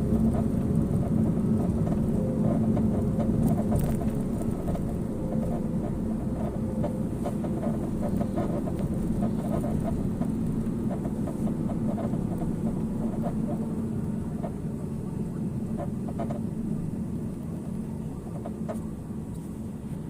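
A Porsche 987 Cayman on the move, steady road and running noise with a dense run of short, irregular creaks from the front right. The owner can't yet say what causes the creak.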